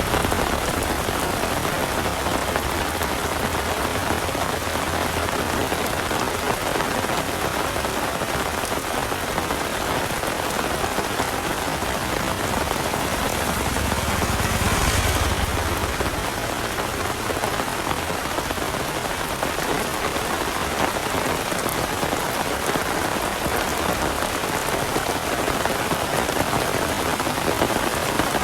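Heavy rain falling steadily on surfaces. A low rumble swells briefly about halfway through.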